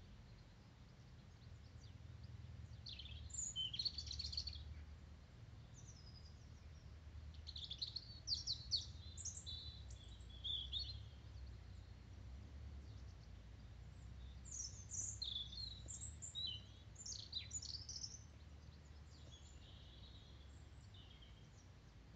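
Small birds chirping and singing in short, scattered phrases over a faint, steady low rumble of road traffic.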